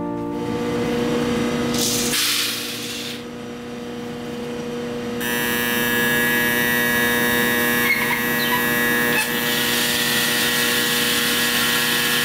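Fuji Royal drum coffee roaster's motor switched on about five seconds in, then running with a steady hum and whine over a high hiss. A short rush of noise comes about two seconds in.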